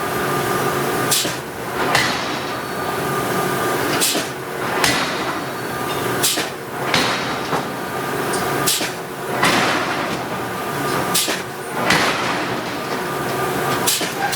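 Hydraulic forging hammer striking hot steel: about a dozen heavy blows, often in pairs, each with a short metallic ring, over the steady hum of the machinery.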